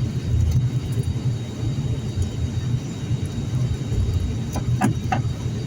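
Cabin noise inside an ATR 72-600 turboprop taxiing after landing: a steady low rumble, with a few short clicks near the end.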